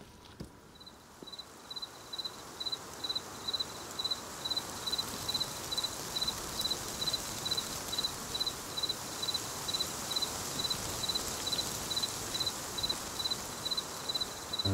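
A cricket chirping at an even pace, a little over two high chirps a second, over a soft outdoor hiss that fades in over the first few seconds.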